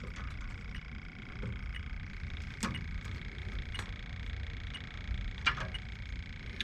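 Electronic refrigerant leak detector giving a steady high-pitched tone while probing the coil for a leak, with a few sharp clicks of handling about two and a half and five and a half seconds in, over a low rumble.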